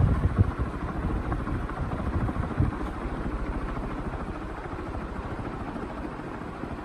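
National F-560A1 56-inch industrial ceiling fan running, its blades' rapid, even whoosh and air wash buffeting the microphone, fading steadily.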